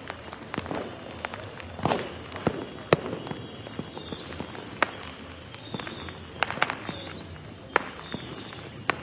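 Fireworks and firecrackers going off: irregular sharp cracks and bangs throughout, the loudest about two and three seconds in, over a steady background of further explosions.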